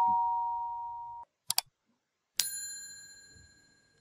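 Sound effects of a subscribe-button animation. A two-note doorbell-style chime, its second note higher, rings out and fades. About a second and a half in come two quick clicks, then a bright bell ding that fades over about a second.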